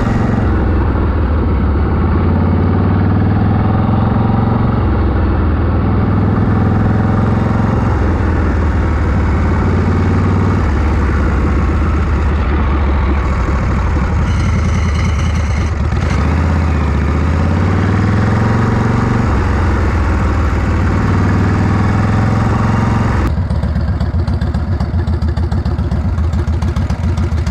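1981 Harley-Davidson Shovelhead V-twin engine running under way, its engine speed stepping up and down every few seconds with one smooth rise.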